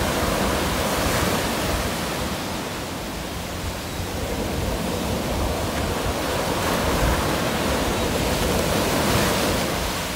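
Ocean surf breaking and washing up the sand: a steady rush that eases a little a few seconds in and swells again toward the end.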